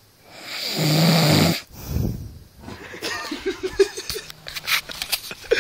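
A man snoring: one loud, rasping snore about a second and a half long, then a softer breath. After that come quieter, choppy sounds and clicks.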